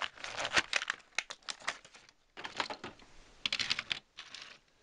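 Bursts of quick clicks and taps as a small Hot Wheels toy train with a metal base and its coal car are handled and set down on a tabletop.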